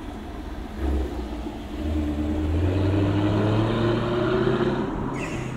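A car driving past on the road, its engine note rising slightly as it accelerates and then fading away. A low thump comes just under a second in.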